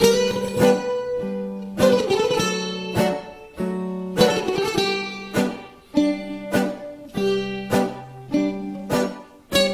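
Two bouzoukis playing a slow instrumental improvisation in a Greek style: sharply plucked, ringing melody notes over held low notes.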